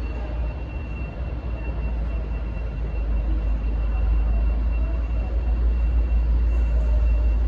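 V/Line N class diesel-electric locomotive's engine rumbling deep and steady, growing louder about three seconds in, with a faint steady high whine over it.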